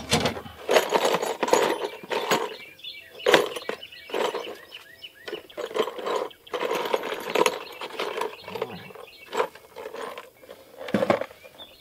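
Screws rattling and clattering in a clear plastic screw box as it is handled and shaken, in irregular bursts of clatter.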